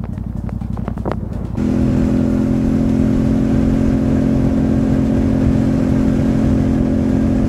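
Yamaha Ténéré 700's parallel-twin engine running at a steady cruise on a wet road, with tyre and wind noise. It cuts in suddenly about a second and a half in, over a quieter low hum with scattered sharp ticks.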